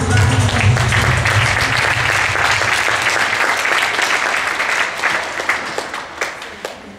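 Audience applauding, a dense patter of clapping that slowly fades away near the end, with the backing music dying out in the first second.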